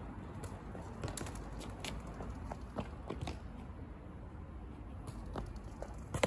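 Irregular taps and scuffs of a football being touched and dribbled on stone paving, mixed with trainer footsteps, over a steady low outdoor rumble. The sharpest knock comes near the end.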